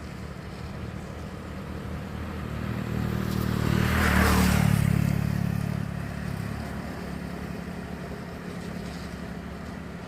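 Road traffic: a steady low engine hum, with a vehicle passing close by that grows louder to a peak about four seconds in and then fades away.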